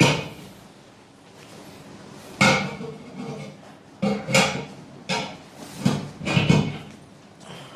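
Hands-on chiropractic adjustment: about five sharp knocks and thumps in quick succession, from thrusts against the patient's body on the treatment table.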